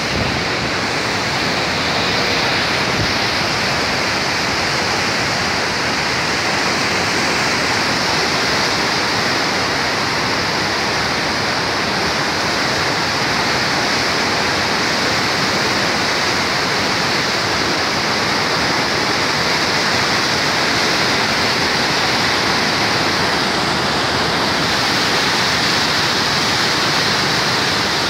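Muddy floodwater of the Saptakoshi (Koshi) River rushing and churning through the Koshi Barrage in flood: a loud, steady rush of turbulent water.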